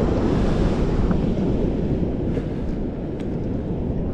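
Steady wind rumbling on the microphone over choppy sea water, with a few faint ticks.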